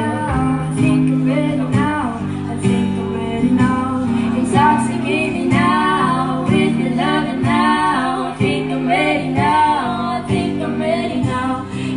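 Music: a song with a female voice singing over guitar and a steady bass line.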